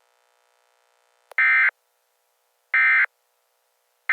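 Emergency Alert System end-of-message data tones: three short, identical digital screeches about a second apart, the coded burst that closes an alert message.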